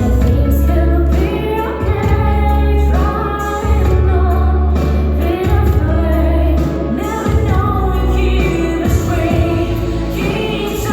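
Music with singing, a female voice over a strong, steady bass.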